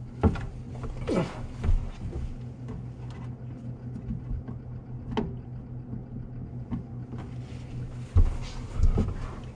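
Handling and movement noise from under a kitchen sink: scattered knocks and bumps against the cabinet, over a steady low hum.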